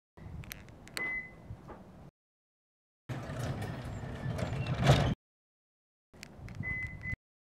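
Three short clips of car and door handling sounds, each cut off abruptly into dead silence. There are clicks and knocks, a noisy stretch that builds to a thud, and a short high beep in the first and last clips.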